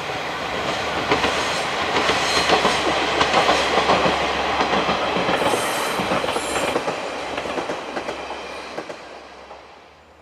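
KiHa 40-series diesel railcar passing close by, its wheels clacking over the rail joints; the sound is loudest a few seconds in and fades away near the end as the train moves off.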